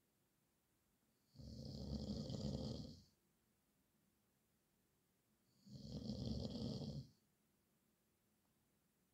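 A man snoring in his sleep: two snores about four seconds apart, each lasting about a second and a half.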